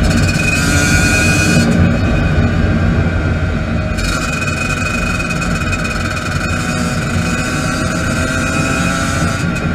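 Two-stroke dirt bike engine running steadily under way on a paved road, with wind rushing over the microphone.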